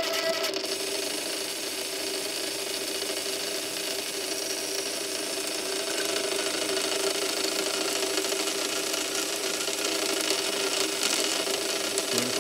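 Reefbot aquarium water tester's pumps running with a steady mechanical hum as it flushes and drains its test chamber between rinses. A higher tone cuts off about half a second in.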